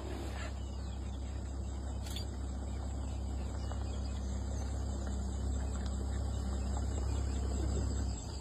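Vehicle engine idling with a steady low hum, cutting off suddenly near the end.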